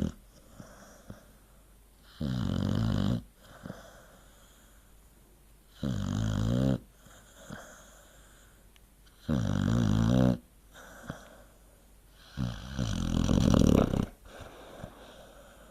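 American Staffordshire terrier snoring in its sleep: four drawn-out snores about three to four seconds apart, the last one the longest and loudest.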